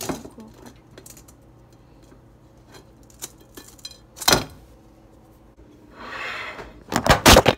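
Metal springform cake pan being unclipped, its ring clicking and clinking as it is worked loose from the cake. A sharp knock comes about four seconds in, and a quick run of loud clattering knocks near the end.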